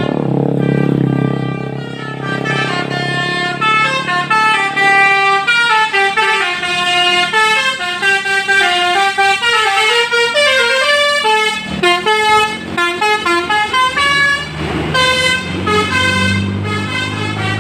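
Indonesian bus 'basuri' (telolet) musical horn playing a tune, note after note in quick steps up and down, loud throughout. A low rumble sits under the first couple of seconds and again near the end.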